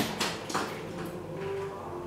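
Ballpoint pen scratching across paper in short strokes while signing a document.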